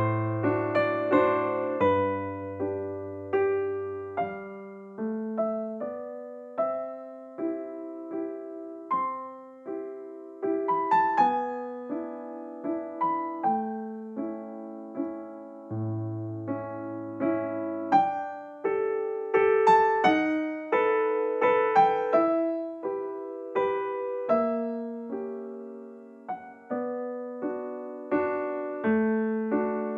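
Background piano music: a slow, gentle tune of single struck notes over low bass notes, each note fading after it is played.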